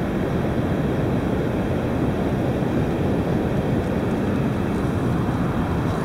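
Steady low rumbling noise of wind buffeting the microphone on an open beach.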